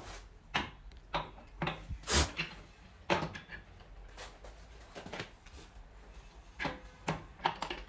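Irregular metal clicks and clunks as a transmission clutch drum is set down into the case onto its shaft and pliers work at the splined hub.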